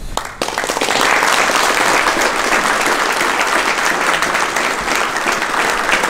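Audience applauding. The clapping breaks out suddenly about half a second in and carries on steadily.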